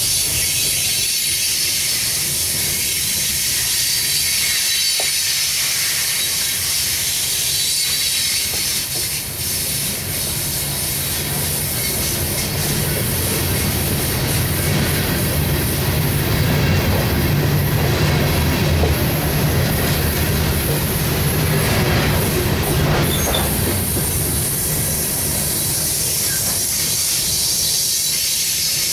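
Loaded coal hopper cars rolling past on the rails: a steady rumble and hiss of steel wheels, with scattered clacks. The low rumble swells through the middle.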